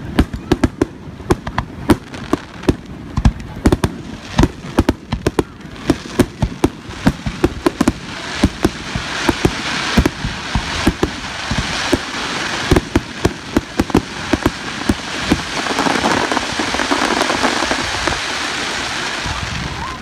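Aerial firework shells bursting in rapid succession, a dense series of sharp cracks and bangs. In the second half the cracks thin out and a loud, dense crackling hiss builds up, strongest near the end.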